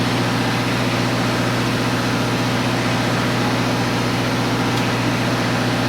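A steady, unchanging low engine hum, like an engine idling.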